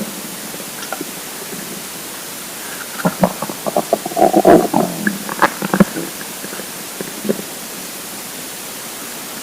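Empty, hungry stomach rumbling: a run of gurgles and short clicks for about three seconds from three seconds in, then one more click, over a steady hiss.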